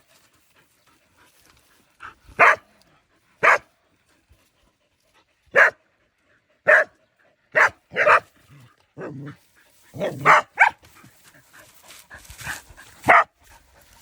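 Dogs barking at a snake: about ten single sharp barks, irregularly spaced, coming closer together in the second half.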